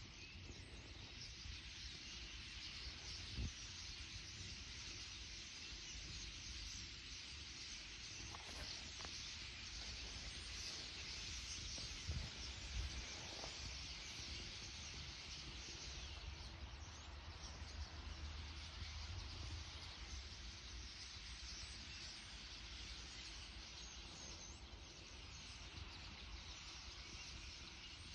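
A large flock of starlings chattering, a dense steady wash of many overlapping calls, over a low background rumble. There are a few brief knocks, about three seconds in and again around twelve seconds.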